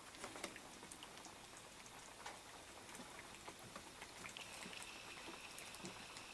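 Faint, wet clicking and smacking of several cats chewing fish and lapping from plates on a tiled floor.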